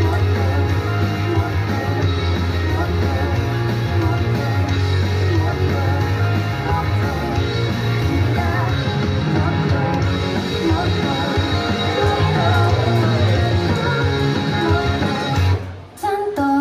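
A song with singing over loud band backing, which stops abruptly about a second before the end.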